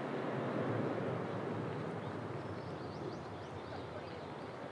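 Open-air ambience: a steady, distant rumble that swells over the first second and a half and then eases back, with small birds chirping faintly in the second half.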